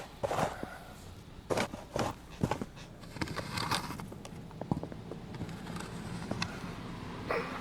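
Footsteps crunching in snow: an uneven run of sharp crunches, a few to the second.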